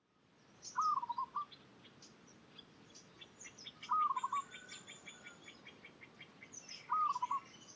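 Zebra dove calling three times, about three seconds apart, each call a rising note followed by a quick run of short staccato coos. Fainter high chirps from other small birds go on behind it.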